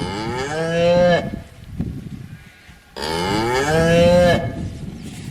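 Cow mooing twice, two loud calls a couple of seconds apart, each rising in pitch and ending abruptly.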